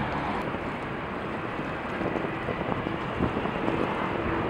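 Airbus A380 jet engines giving a steady rushing rumble as the aircraft rolls down the runway after landing, mixed with wind on the microphone.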